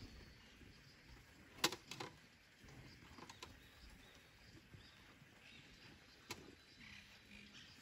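Very quiet outdoor air with faint bird chirps and a few sharp clicks, the loudest about a second and a half in.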